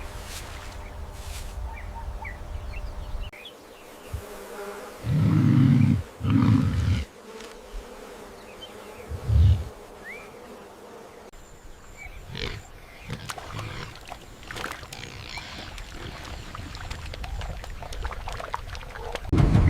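Wild animal sounds: three short, loud, low growls, two in quick succession about a third of the way in and one more about halfway, over a faint buzzing and chirping ambience.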